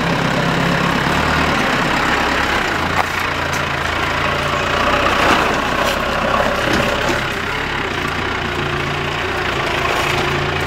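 Four-wheel-drive pickup truck engine running steadily as the truck crawls up a steep, rutted dirt track.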